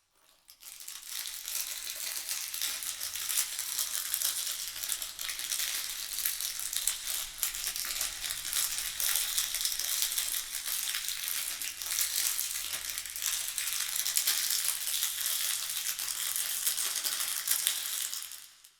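Plastic candy wrapper being crinkled and handled continuously: a dense crackle of fine snaps that builds up at the start and stops suddenly near the end.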